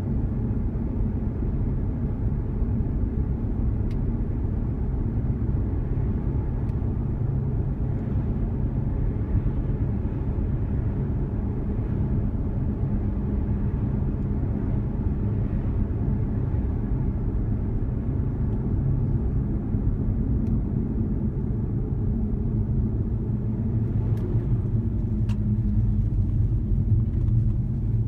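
Steady low rumble of a car driving at road speed, mostly tyre and engine noise, heard from inside the cabin.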